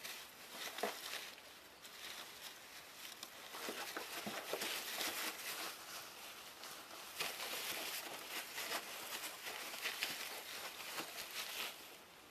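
Shredded paper bedding rustling and crinkling as ferrets wrestle and scramble through it, with irregular scratches and clicks, busier after the first couple of seconds.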